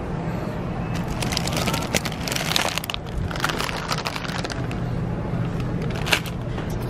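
Shopping cart rolling and rattling along a store aisle over a steady low hum, with clusters of clicks and crackles. Near the end a snack bag crinkles as it is dropped into the cart.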